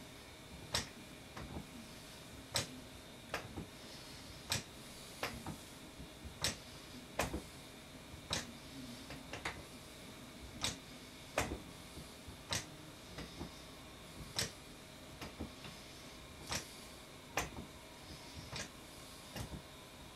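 Stepper exercise machine clicking with each step: one sharp click about every second, in an uneven left-right rhythm.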